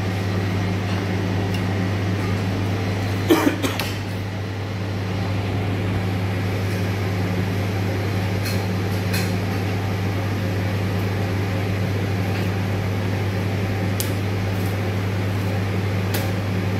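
Steady low mechanical hum of kitchen equipment. About three seconds in comes a quick cluster of knocks as the raw beef tenderloin and knife are handled on a plastic chopping board, with a few faint clicks later on.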